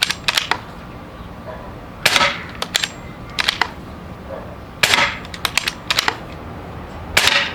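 Umarex Gauntlet 2 PCP air rifle firing through a 3D-printed moderator: three shots about two and a half seconds apart, each a short thump, each followed by a quick run of sharp clicks.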